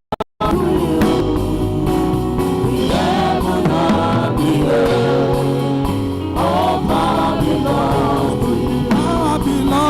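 Gospel singing by a choir over sustained low instrumental accompaniment. The sound drops out twice for a split second at the very start.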